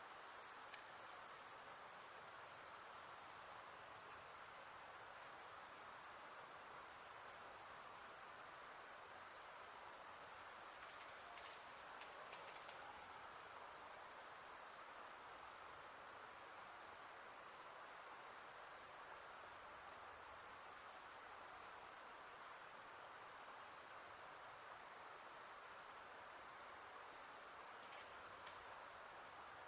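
A dense chorus of insects trilling steadily in a constant high-pitched drone.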